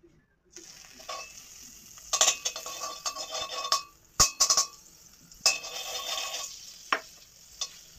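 Butter sizzling in a hot metal kadai as it is rubbed around the pan, in uneven bursts of hissing and scraping, with a few sharp clinks.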